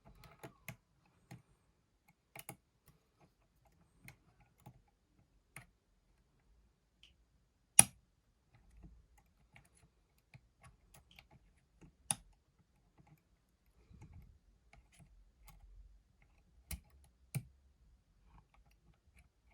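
Lock pick and tension tool clicking and tapping against the levers inside a five-pin curtain lever lock: scattered small clicks, with a sharp loud click about eight seconds in, another about four seconds later, and two more close together near the end.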